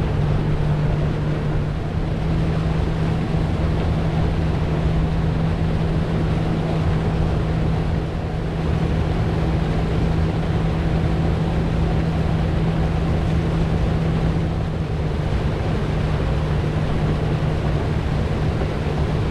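Boat engine running steadily under way, a constant low drone, with the rush of water and wind over it.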